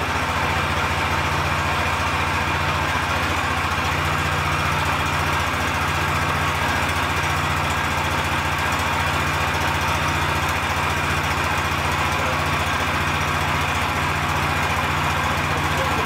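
Lifan 15 hp single-cylinder petrol engine of a homemade mini front loader idling steadily just after being started, with no revving.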